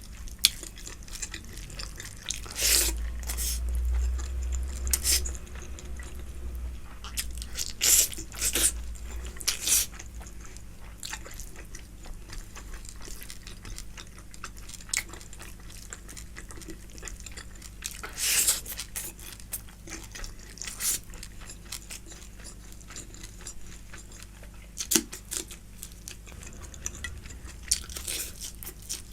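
Close-miked eating of mutton fat curry and rice: irregular chewing with sharp wet clicks and crunches, a few of them louder, about 3, 5, 8, 18 and 28 seconds in.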